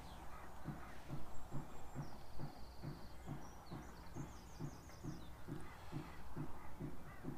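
Fixed-spool fishing reel being wound on a feeder rod, an even run of low clicks about three a second. A few faint bird chirps sound in the middle.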